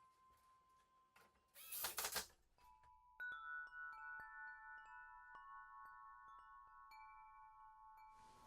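A brief rustling clatter about two seconds in. Then tuned wind chime tubes ring: several notes are struck one after another and sustain, slowly fading.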